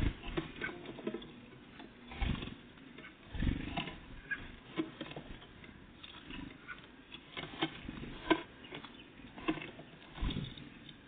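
Great tits and blue tits feeding: irregular pecking taps and clicks, with a few low thumps.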